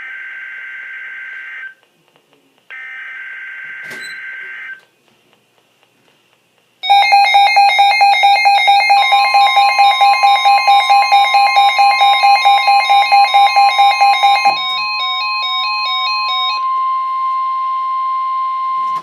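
NOAA Weather Radio SAME alert header sounding as two harsh, buzzy data bursts of about two seconds each. About 7 s in, a loud, rapidly pulsing electronic alarm beep starts. About 9 s in, the steady 1050 Hz weather-radio warning tone joins it. The beeping turns to a stepped chime pattern, then drops out, and the steady warning tone holds on alone.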